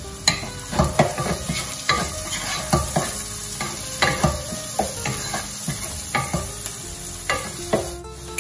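Wooden spatula stirring and scraping chopped onion, green pepper and carrot sautéing in oil in a nonstick pot, about two strokes a second over a steady sizzle.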